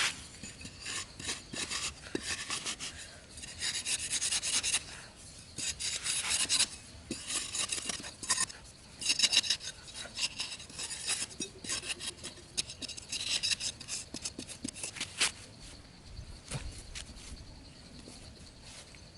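Rough scraping and rasping strokes in irregular bursts every second or two, which stop about fifteen seconds in.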